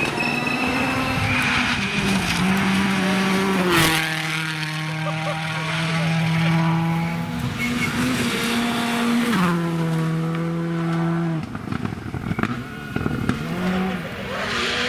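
Turbocharged rally car engines driven flat out on a special stage, held at high revs with the pitch stepping at gear changes several times, and a sharp crack about four seconds in. Quieter and more uneven for a couple of seconds near the end.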